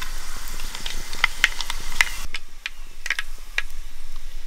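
Mustard seeds and fenugreek frying in hot coconut oil in a clay pot: a steady sizzle scattered with sharp pops as the seeds splutter. The sizzle drops away about two seconds in, while the pops go on.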